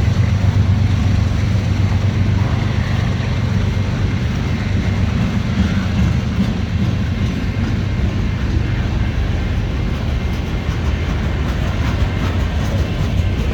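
CSX mixed freight train passing, its cars rolling by with a steady low noise of wheels on the rails.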